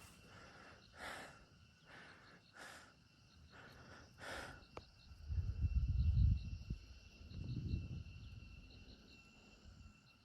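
Quiet tropical forest: insects keep up a thin steady high drone with a faint repeating chirp. Five soft puffs come in the first half, and two low rumbles of wind on the microphone come about halfway through.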